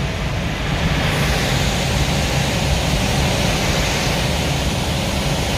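Steady rushing of air and cockpit noise inside a small aircraft in flight during aerobatic manoeuvres.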